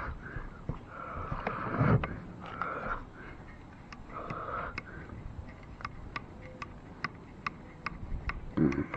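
Hand adjustment of a Porter-Cable 557 plate joiner's fence with the motor off: a knock of the tool handled on the table about two seconds in and another bump near the end. A man breathes through his nose close to the microphone, and a faint quick ticking runs through the second half.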